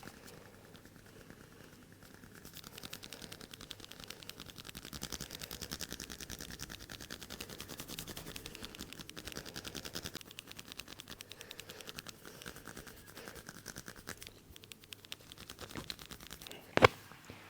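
Hands working fast and rhythmically over a person's head and hair in a head massage, a quick run of strokes with a dry rustle of hair. Near the end, one sharp, loud crack.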